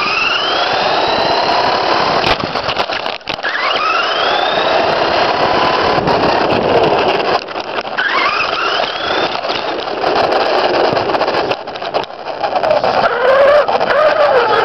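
Electric RC truck, an XTM X-Cellerator, driving: its motor and gears whine and rise in pitch with each burst of throttle, three times in a row, over steady tyre and chassis noise with scattered knocks as it runs over bumps.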